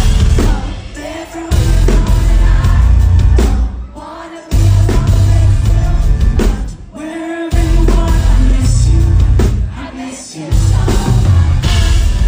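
Male vocalist singing into a microphone at a live concert over loud accompaniment with heavy bass, the bass dropping out briefly every few seconds between phrases.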